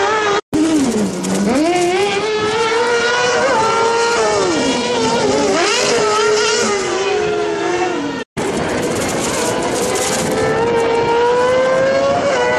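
Kartcross buggies' motorcycle engines revving hard, the pitch climbing and dropping again and again through gear changes and lift-offs. The sound cuts out briefly twice, about half a second in and about eight seconds in.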